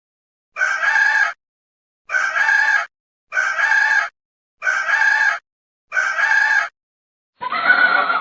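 A chicken calling five times in an even rhythm, each call under a second long and about 1.3 seconds apart. Near the end a different animal call begins.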